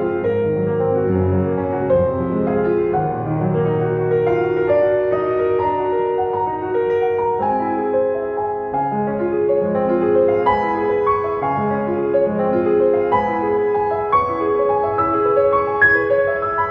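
Background music: a gentle piano piece of held notes changing at a slow, even pace.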